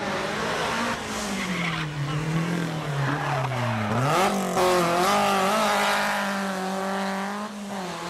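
Rally car engine at speed, falling in pitch as the driver comes off the throttle into the corner, then revving sharply about halfway through and holding high revs as the car powers out, with tyres squealing as it slides through the bend.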